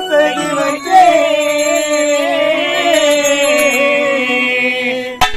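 Music: a singer holds one long, wavering sung note at the start of a devotional Tamil song to the goddess, and sharp drum strokes come back in near the end.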